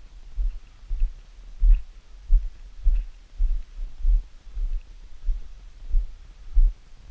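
Footsteps of a hiker walking a trail: a steady series of dull low thuds, about one every 0.6 seconds.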